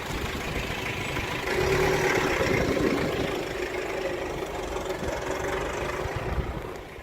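Engine and road noise heard from inside a moving vehicle: a steady low rumble.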